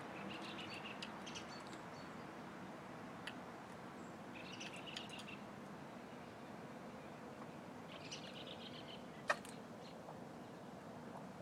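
Silkie chicken giving soft, high chirping trills in three short runs, with a few faint ticks between. One sharp sneeze about nine seconds in is the loudest sound.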